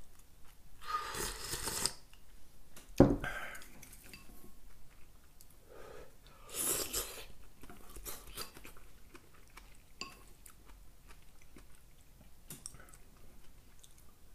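A person eating soup: slurping broth from a ceramic bowl, then a sharp knock about three seconds in as the bowl meets the wooden table. Another slurp follows, with chewing and light clicks of chopsticks.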